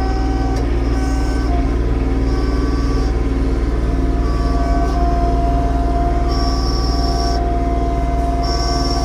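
Yanmar YT235 tractor's diesel engine running steadily, with a high whine that comes and goes several times.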